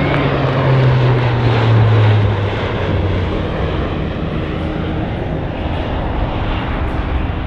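Four-engine C-130J Super Hercules turboprop with six-bladed propellers flying past low. Its propeller hum drops in pitch and peaks in loudness about two seconds in as it passes, then settles into a steady drone as it flies away.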